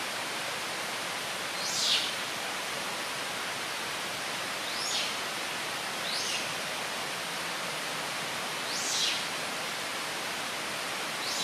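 Steady outdoor hiss with a bird's short downward-sliding whistle, repeated five times every couple of seconds; the first is the loudest.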